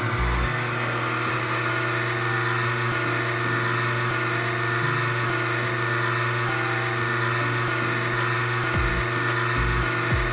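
Personal cup blender's motor running steadily at a constant pitch, puréeing strawberries with water and sugar into a smooth liquid.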